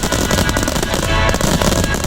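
Starmine fireworks barrage: many shells bursting and crackling in quick succession, over loud music.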